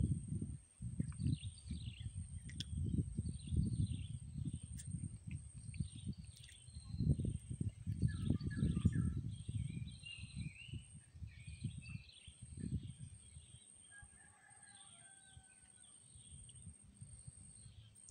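Wind buffeting the microphone in gusts, dying down after about 13 seconds, while small birds chirp repeatedly in the background.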